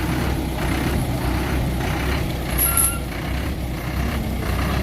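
Heavy diesel engine running steadily under a low rumble, with a brief high hiss about halfway through.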